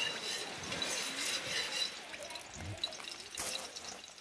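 Curry powder and garlic frying in hot oil in an aluminium pot over a fire, sizzling and crackling as a metal spoon stirs and scrapes, with a sharper clack about three seconds in. The curry is being deliberately burnt in the oil.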